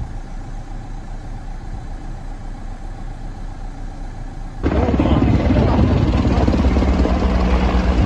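Steady background noise, then a sudden cut, a little over halfway through, to the loud, fast-beating rumble of a firefighting helicopter's rotor overhead.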